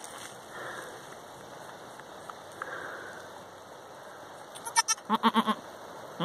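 Goats bleating a little over halfway through: one short high-pitched bleat, then a low, stuttering bleat, over a steady hiss.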